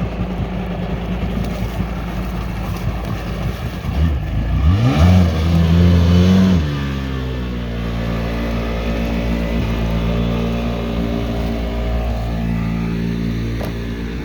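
Jet ski engine running, revved up hard about four seconds in for roughly two seconds, then cut back abruptly, its pitch falling and settling into a steady run.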